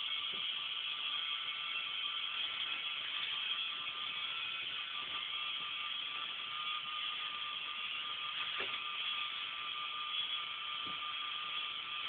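K'NEX model roller coaster running: a steady clatter of plastic chain and gears from its motorised lift, with a few sharper clicks.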